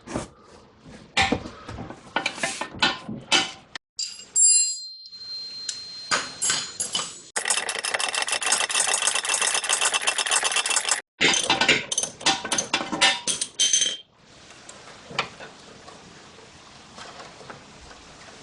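Hand ratchet clicking and metal tools clinking while undoing the lower nut of a front sway bar link, with a few seconds of fast, continuous ratchet clicking in the middle. For the last few seconds only a faint hiss remains.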